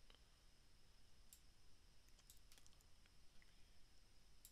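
Near silence with scattered faint clicks of a computer mouse, several close together about halfway through.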